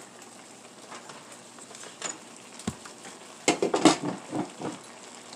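A spoon clinking and scraping against a cooking pot as food is stirred, with a few single taps and then a quick cluster of louder knocks about three and a half seconds in.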